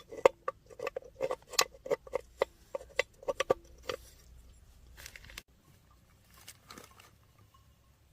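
Quick, irregular taps and clicks, several a second, for about four seconds, then only a few faint ones.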